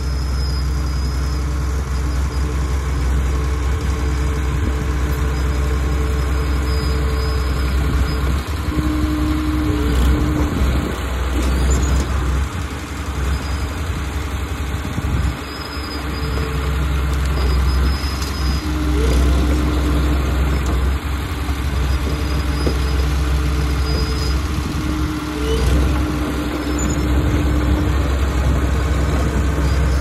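Small crawler bulldozer's diesel engine running steadily under load as the blade pushes dirt and a small tree over a bank, its pitch rising briefly a few times.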